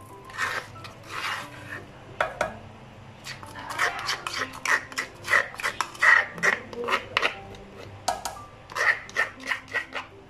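A spoon scraping wet pounded spice paste out of a stone mortar, a quick series of short scraping strokes, about three a second, with a brief pause before a last run of strokes.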